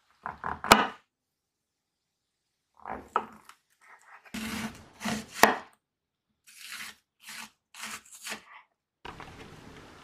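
A kitchen knife slicing through king oyster mushrooms and then an onion on a wooden cutting board, in several groups of short strokes, some ending in a sharp knock of the blade on the board. A soft steady hiss starts near the end.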